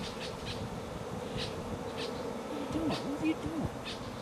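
A flying insect buzzing close by in a steady hum, its pitch swooping down and up several times a little past the middle.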